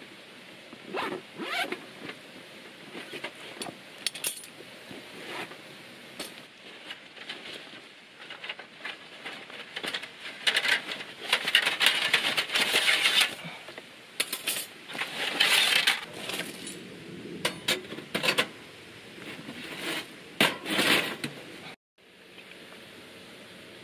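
Camping gear being unpacked by hand: zippers on fabric storage bags pulled open in several long rasps, with metal parts clinking and clattering. Near the end it gives way to a steady soft hiss.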